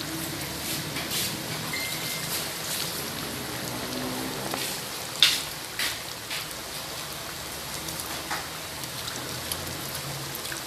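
Soup at a rolling boil in a wide aluminium wok, a steady bubbling hiss, with a few sharp clicks, the loudest about five seconds in.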